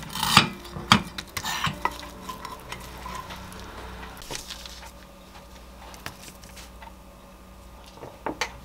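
A silicone spatula scraping and knocking around a frying pan as it gathers scrambled eggs into shape, loudest and busiest in the first two seconds. Two or three sharp clicks near the end.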